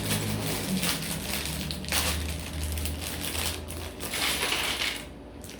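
Plastic Lego parts bag crinkling and crackling as it is handled.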